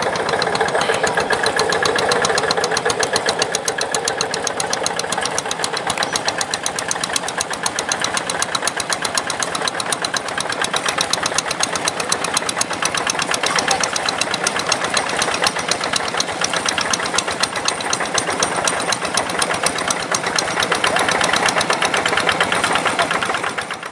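Kubota RD85 single-cylinder diesel of a Quick G1000 Boxer hand tractor running under load as the tractor works through deep paddy mud, a steady fast knocking beat. The sound fades out at the very end.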